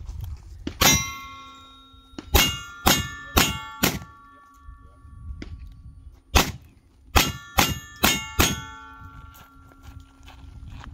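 Single-action revolver shots at steel targets, ten in two quick strings of five with a pause of about two seconds between them. Each shot is followed by the ringing of the struck steel plate.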